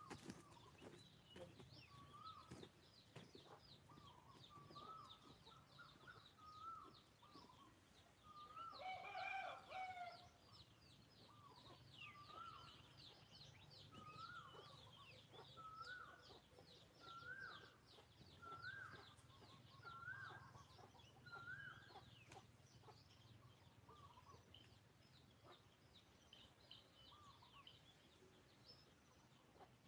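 Faint chickens clucking, a short call repeated about every second and a half, with one louder call about nine seconds in. Fast high chirping from small birds runs behind them.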